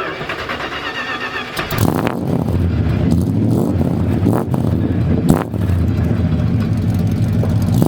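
Car engine turning over and catching about two seconds in, then running with a loud, deep rumble.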